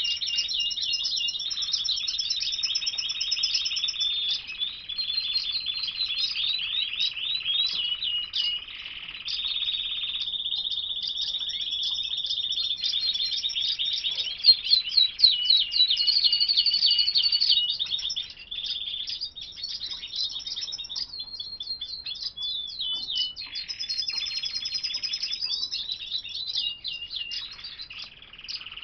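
Caged domestic canaries singing: a long, nearly unbroken song of rapid trills and rolls mixed with held whistled notes.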